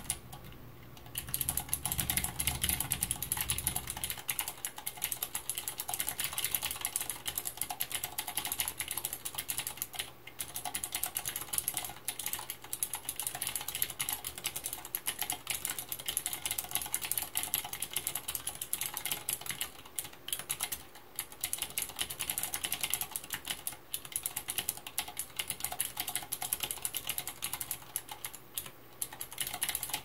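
Typing on an OLKB Planck 40% ortholinear keyboard fitted with Cherry MX Green clicky switches in a stainless steel plate and aluminium case: a dense, steady stream of key clicks. It starts about a second in, with a couple of brief pauses along the way.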